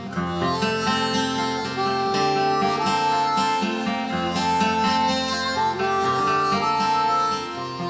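Harmonica playing a melody line in long held notes over fingerstyle acoustic guitar in DADGAD tuning, key of F. The harmonica stops near the end, leaving the guitar.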